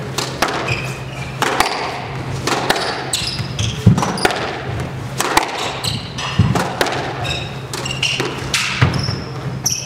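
Squash rally: a quick run of sharp ball strikes as rackets hit the ball and it slaps the front wall and floor, the loudest about four seconds in. Short sneaker squeaks on the hardwood court come between the hits.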